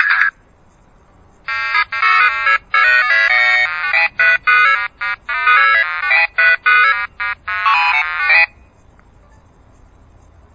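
Mobile phone ringtone playing a quick, choppy electronic melody through the phone's speaker, starting about a second and a half in and cutting off abruptly about seven seconds later. The tail of the previous ringtone stops right at the start.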